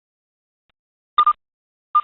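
Electronic alert beeps: after about a second of silence, two short double beeps at the same pitch, about three quarters of a second apart.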